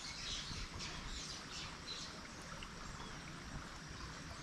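Steady outdoor background noise with a low rumble, and a few faint bird chirps in the first second and a half.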